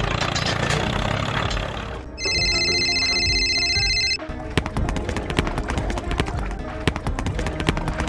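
A toy excavator working with a rough, noisy whir, then a steady electronic beep held for about two seconds, then a run of quick clicks and ticks over music.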